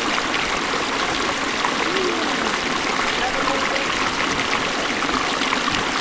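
The Beas River rushing steadily, a constant roar of fast-flowing mountain water, with faint voices far off.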